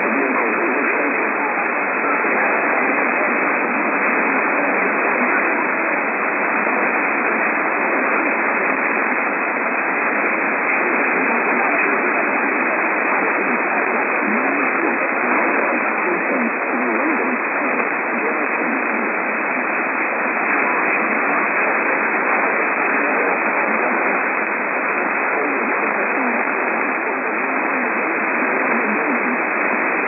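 AM radio static: a steady, dull hiss from a weakly received AM station, with no highs and no crackles.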